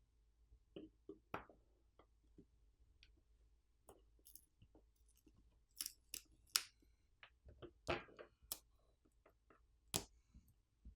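Faint, scattered clicks and scrapes of a pry tool working the camera bezel off the back of a Samsung Galaxy A07 phone; the sharpest clicks come about six, eight and ten seconds in.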